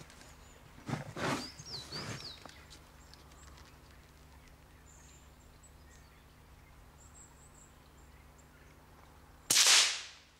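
A single shot from an Anschutz 1517 .17 HMR rimfire rifle fitted with a silencer: one sharp crack near the end that dies away within a second. Earlier, about a second in, a few brief rustles and a short bird call over the quiet outdoor background.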